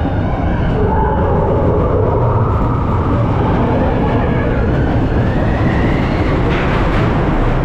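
Vekoma steel roller coaster train running along its track, a steady loud rumble of wheels on steel rails.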